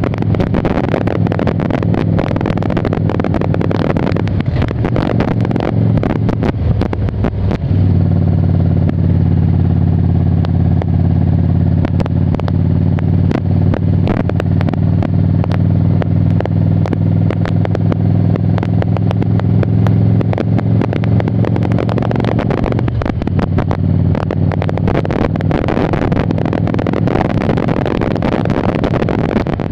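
2002 Harley-Davidson Ultra Classic's V-twin engine running on the road, with wind buffeting the microphone. Through a long middle stretch the engine note holds steady and stands out clearly over the wind.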